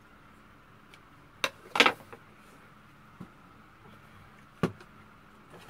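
A few separate clicks and knocks from kitchen scissors cutting bean sprouts over a stainless steel bowl, the loudest a short clatter about two seconds in. Another single knock follows near the end as things are handled.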